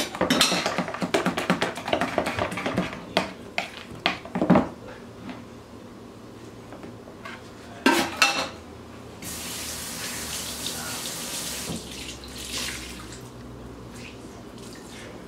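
Clattering and scraping of mixing in a kitchen bowl for the first few seconds, with a sharp knock about eight seconds in. Then a kitchen sink tap runs for about three seconds and stops.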